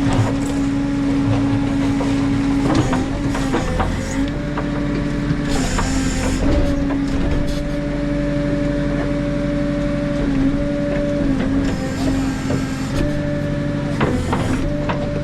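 JCB 3CX backhoe loader's diesel engine running under hydraulic load while digging. Its steady note dips briefly several times, with scattered knocks and clanks and two short bursts of hiss.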